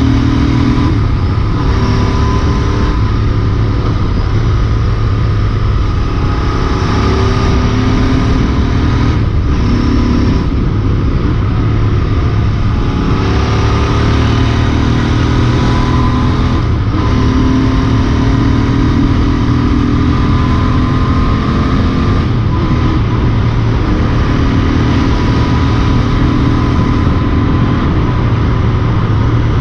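Royal Enfield Interceptor 650's parallel-twin engine and exhaust running steadily at road speed, its pitch drifting a little, with wind rush over the rider-mounted microphone.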